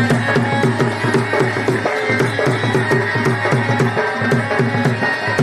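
Folk drumming accompanying a danda nacha dance: a fast, even rhythm of drum strokes, each dropping slightly in pitch, with a held high tone above.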